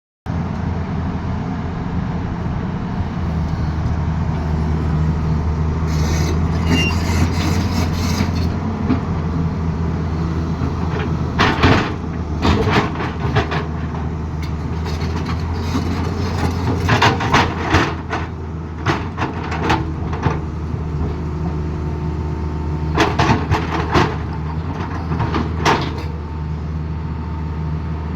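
Excavator's diesel engine running steadily under load, with repeated bursts of sharp clatter and scraping from the machine working the road surface.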